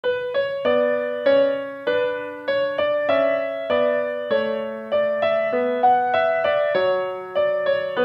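Background piano music: a gentle melody of single struck notes over lower notes, each ringing and fading, about two to three notes a second.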